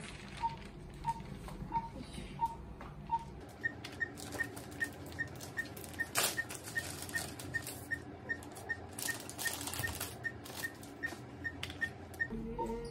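Patient monitor beeping once per pulse, about a beat and a half a second; about three and a half seconds in the sound is sped up to double speed, so the beeps come higher and about three a second. Behind them, the rustle and clicks of the plastic epidural kit tray and its wrapping being handled.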